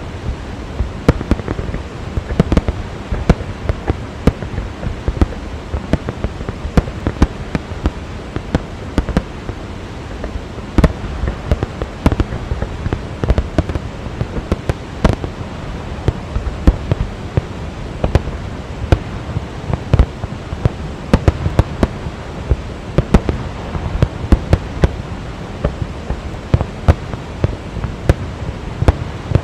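Fireworks display in full barrage: a dense, continuous run of sharp bangs from bursting shells, several a second, over a steady rushing background.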